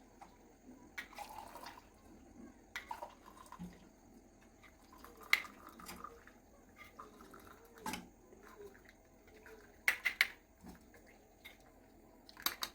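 Hot herbal decoction being strained: liquid trickling and dripping through a strainer, with short light clinks of utensils every second or two.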